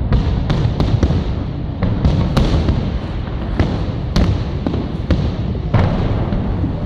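Fireworks display: a string of sharp bangs, roughly one or two a second, over a continuous low rumble of bursting shells.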